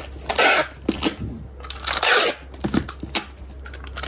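Packing tape being run off a handheld tape dispenser and pressed onto a cardboard carton: two short rasping bursts of tape unrolling, near the start and about two seconds in, with hands rubbing the tape down and a few light clicks of the dispenser.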